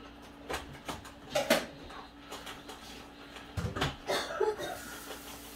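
Kitchen clatter: a handful of separate knocks and clinks from dishes, utensils and cupboard doors being handled, the loudest about a second and a half in and near the middle, over a steady faint hum.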